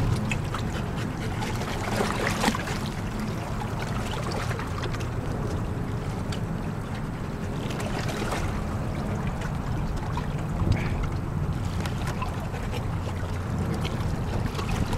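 Steady wind on the microphone over small waves lapping at the shore, with a couple of brief splashes as a dog moves in the shallow water.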